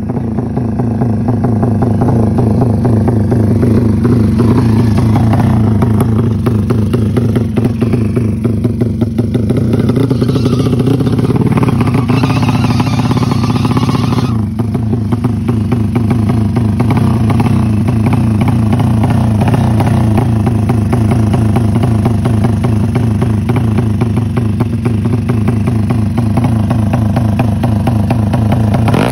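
Single-cylinder engine of a modified drag-style motorcycle running loud and steady through an aftermarket exhaust at a fast idle, its firing pulses rapid and even. For a few seconds near the middle the sound turns rougher and brighter before settling back.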